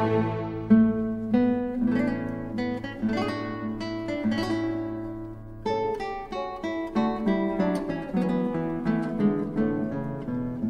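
Background music: a solo acoustic guitar plucking a slow melody, each note ringing and fading, with a short pause about halfway through before the next phrase.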